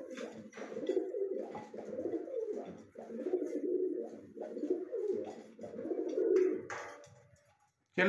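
Pigeons cooing, a run of low rolling coos one after another that fade out near the end.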